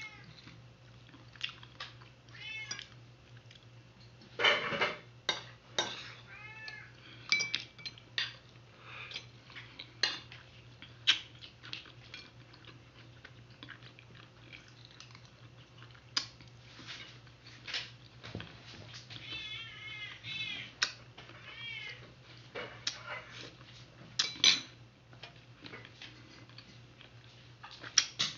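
Sharp clicks and taps of boiled balut eggshell being cracked and peeled over a ceramic plate, several of them loud knocks. Between them come a few quick runs of short, high animal calls.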